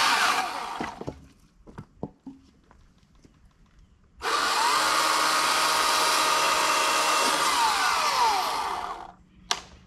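EGO CS2005 20-inch cordless electric chainsaw cutting firewood: it winds down in the first second, a few knocks follow, then the motor starts abruptly about four seconds in and runs loud for about five seconds, its pitch rising as it spins up and falling near the end, before it winds down. A single sharp click comes just before the end.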